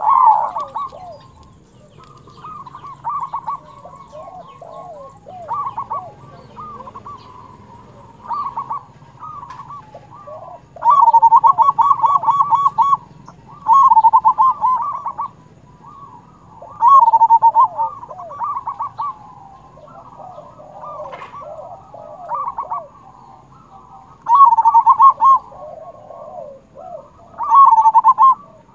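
Zebra dove (perkutut) singing: loud bursts of rapid repeated cooing notes about every three seconds, the longest near the middle, with softer cooing notes between them.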